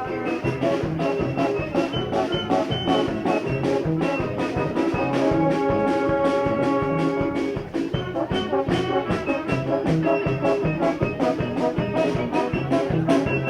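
Brass street band playing over a steady drum beat, with a long held chord a few seconds before the middle.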